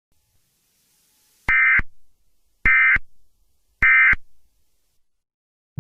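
Emergency Alert System end-of-message data bursts: three identical short, buzzy digital tones about a second apart. This is the code that closes an alert broadcast.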